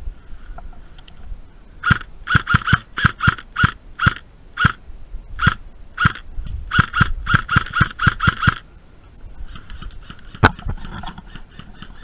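Airsoft guns firing semi-automatic, a string of about twenty quick, irregular shots over roughly six seconds. A single sharper crack comes near the end.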